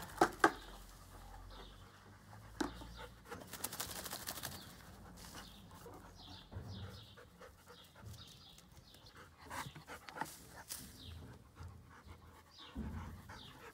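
A wet Bernese Mountain Dog panting after being rinsed with a bucket of water. Two loud sharp knocks come just after the start, and faint bird chirps are heard now and then.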